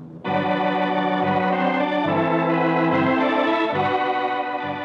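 Organ music bridge: sustained chords come in suddenly, change a few times over a moving bass, and fade toward the end, marking a scene change in the radio drama.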